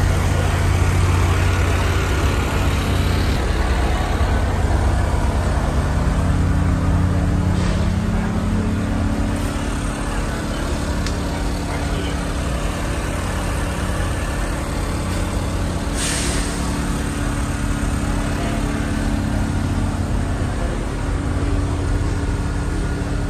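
A diesel locomotive engine idling steadily, its low drone stepping up slightly in pitch about eight seconds in. A short hiss of released air comes about two-thirds of the way through.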